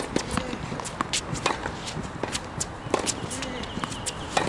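Tennis rally on a hard court: a series of sharp pops from racket strings striking the ball and the ball bouncing, with running footsteps and shoe scuffs between shots.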